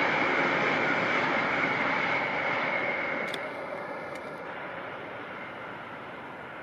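BART train running over an elevated concrete viaduct, a steady rush of wheels on rail that fades away as the train moves off.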